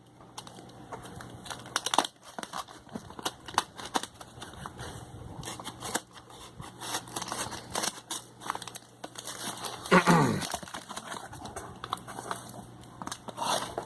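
Scissors snipping and packaging crinkling and tearing as a parcel is cut open, with a run of short clicks and rustles. About ten seconds in comes a brief falling, pitched sound, the loudest moment.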